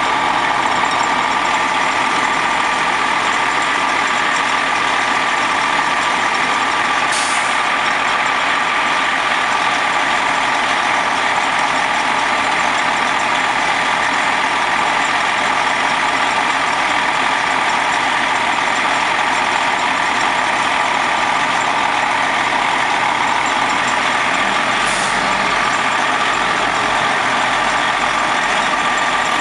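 Diesel engine of a Prevost H3-45 motor coach idling close by, steady, with a constant whine. Two short hisses of air come from the coaches' air systems, about seven seconds in and again near the end.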